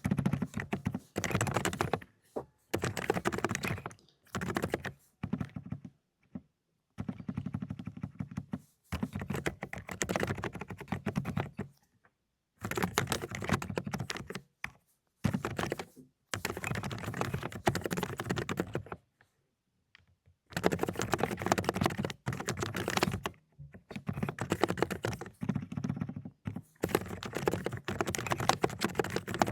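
Fast typing on an Aula ('Dokgeomi') mechanical keyboard with silent cotton-candy switches: dense runs of key clacks lasting a few seconds each, broken by short pauses, with the longest pause about two-thirds of the way through.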